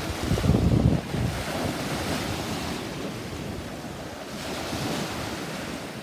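Small waves breaking and washing up the sand at the shoreline, swelling and ebbing, with wind buffeting the microphone, strongest about half a second to a second in.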